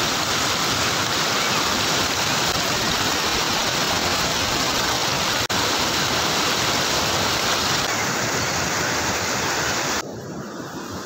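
Water pouring over a concrete lake overflow weir (kalingal), a steady loud rush with one momentary dropout midway. About ten seconds in it drops away abruptly to a much quieter outdoor background.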